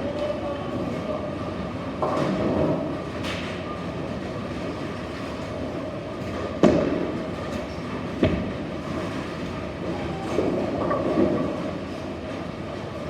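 Bowling alley: bowling balls rolling on the lanes with a steady rumble, broken by sharp crashes of pins, one about halfway through and another a second and a half later.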